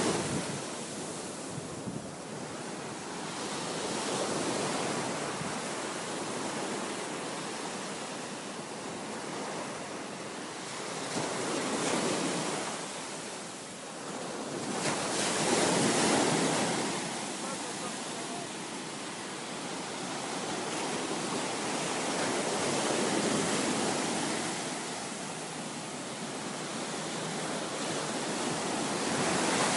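Ocean surf washing onto a beach, a steady rush that swells and eases every few seconds as waves break.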